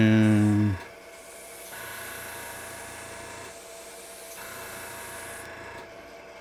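Airbrush hissing as it sprays alcohol dye onto a wooden ornament spinning on a wood lathe, over the lathe's steady hum. The spraying starts about two seconds in and stops shortly before the end.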